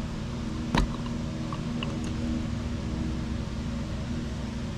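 A steady machine hum, like a fan or air conditioner running, with a single sharp click about a second in.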